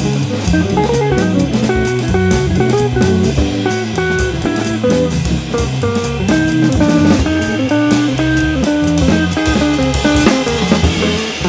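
Live jazz combo of electric guitar, organ and drum kit playing, with a line of quick single notes over the organ chords and cymbal time.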